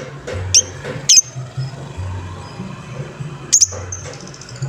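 Lovebird giving short, sharp, high-pitched squeaky calls, three of them, over a low repeating background beat.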